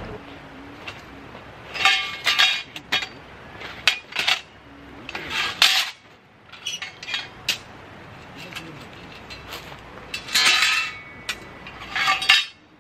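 Metal camping gear being handled and set down: irregular clinks and clanks, several ringing briefly, coming in clusters every few seconds.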